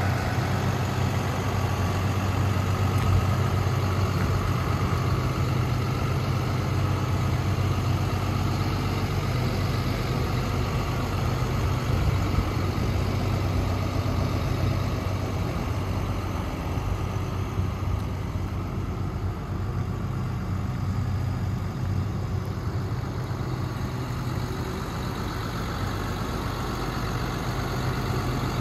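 The Cummins ISB inline-six turbo diesel of a 2018 International 4300 dump truck idling steadily, a little fainter in the second half.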